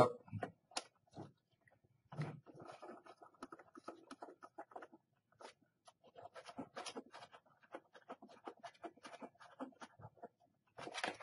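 Faint, irregular scraping and small clicks of a VGA cable's connector being worked into its port on the back of a computer monitor.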